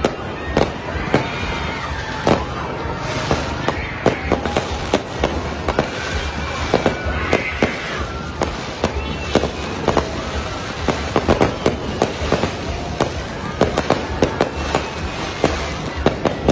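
Aerial fireworks going off in a dense, irregular string of sharp bangs and crackles.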